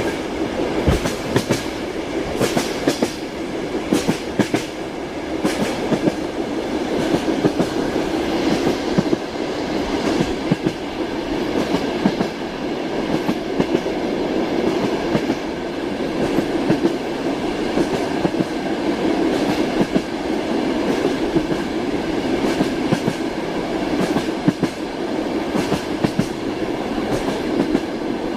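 Train wheels clacking over rail joints: a steady rolling rumble with sharp clicks every second or two.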